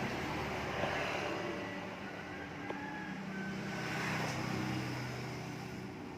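A motor vehicle's engine running steadily, swelling about four seconds in and easing off near the end.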